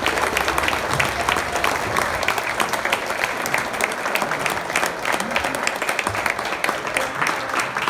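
Audience applauding steadily, dense clapping that carries on without a break.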